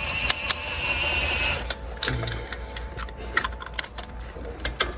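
A steady high hiss for about the first second and a half, then irregular sharp mechanical clicks, like a ratchet wrench and hand tools being worked on the Jeep's wheel.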